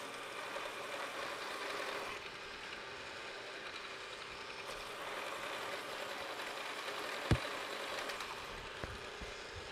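Precision Matthews PM-727 milling machine with its spindle running steadily while the cutter is hand-fed down to counterbore a screw hole in a vise jaw blank. One sharp click about seven seconds in.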